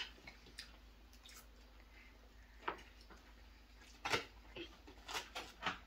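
Faint mealtime sounds: a few scattered soft clicks and smacks as people eat. Most of them come in the second half.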